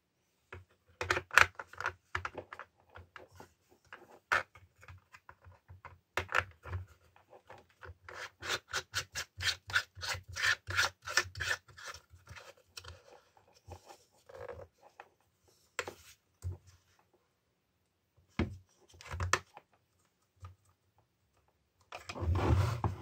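A saw chain and guide bar being handled and fitted to a Makita UC4041A electric chainsaw by hand. The metal chain links and bar give a long run of quick rattling clicks, most rapid from about a third to halfway through, then the plastic sprocket cover is fitted with scattered clicks. A louder scrape comes near the end.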